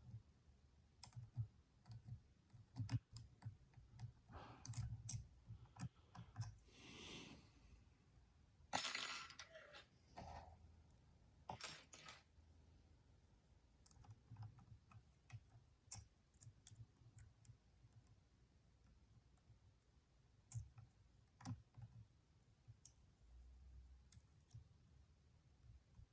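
Irregular faint metallic clicks and scrapes of lock picks working the pins of a Stanley challenge padlock, with a few louder scraping, rattling bursts about a third of the way in.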